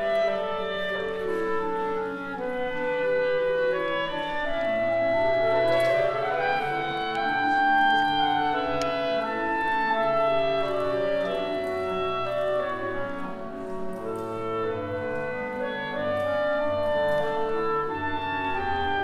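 Clarinet quintet of four clarinets and a bass clarinet playing a piece together, sustained melody and harmony over low held bass-clarinet notes, with a rising run of notes about five seconds in.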